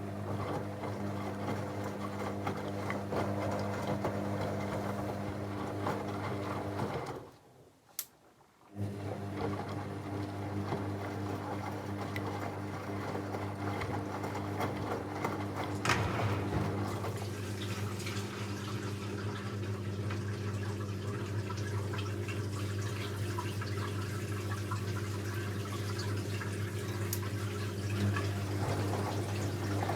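Techwood WB 91042I washing machine taking in water: the inlet valve hums steadily as water rushes into the drum. About seven seconds in it shuts off briefly, with a click, then opens again.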